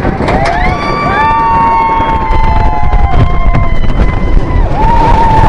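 Riders on a roller coaster screaming and whooping, several long overlapping cries rising and falling, over the steady rumble and wind noise of the moving train.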